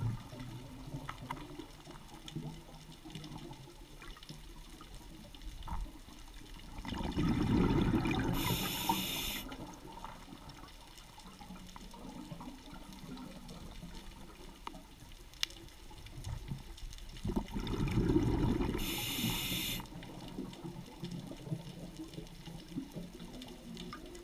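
Underwater sound of bubbling water, swelling twice about ten seconds apart, each swell ending in a short hiss; typical of a diver's breathing and exhaled bubbles heard on the camera underwater.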